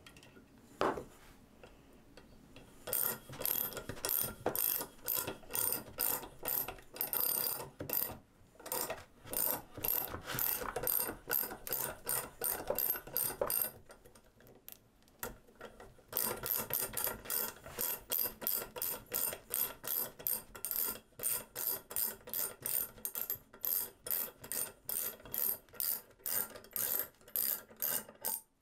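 Homemade tap ratchet (a socket-style ratchet driving a drill chuck) clicking in quick runs as its handle is swung back and forth, turning a bit into steel. The clicking starts a few seconds in and stops for about two seconds around the middle.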